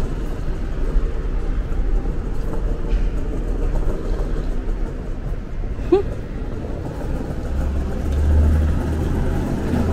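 Car on the move: steady road noise and engine rumble, with a short rising squeak about six seconds in and a deeper low hum building near the end.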